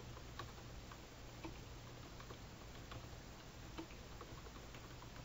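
Faint computer keyboard typing: scattered single keystrokes, irregular, about one or two a second, over a low steady hum.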